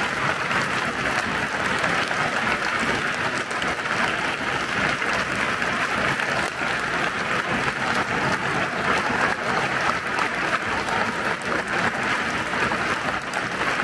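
Large stadium crowd of football supporters applauding, a steady dense clapping that keeps an even level throughout.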